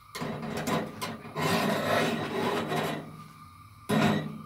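A metal spoon scraping with a rough, rasping sound for about three seconds, then a short knock about four seconds in.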